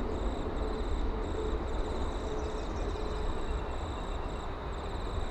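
Insects chirping in a steady, pulsing high trill over a steady low rumble of outdoor background noise.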